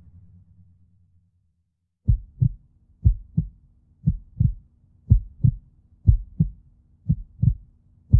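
Music fades out within the first second, then about two seconds in a heartbeat sound effect starts: paired low thumps, lub-dub, about one pair a second, over a faint low drone.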